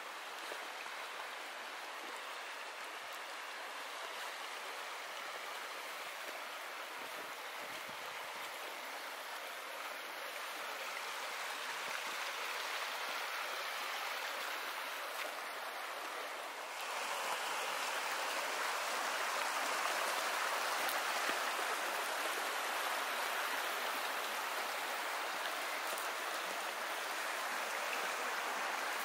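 A stream rushing steadily, with no break. It steps up louder a little over halfway through.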